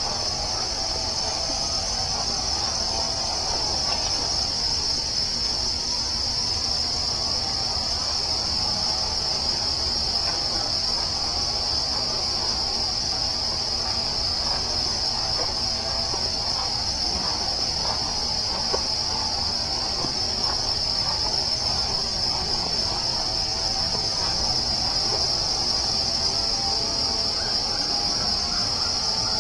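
Chorus of crickets in a forest: a steady, unbroken high trill, over a low, even rumble.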